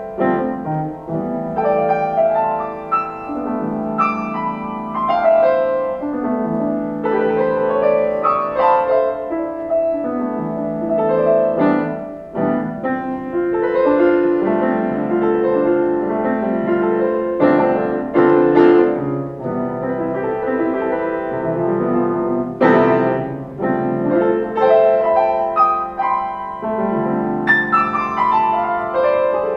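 Piano music played slowly, in held chords and notes that change every second or two.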